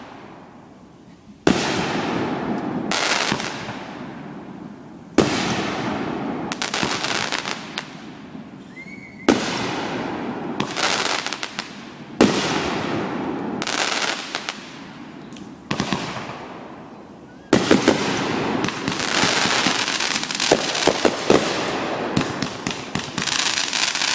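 Fireworks going off: about six loud bangs a few seconds apart, each followed by a long crackling tail, then a dense run of bangs and crackle from about two-thirds of the way in.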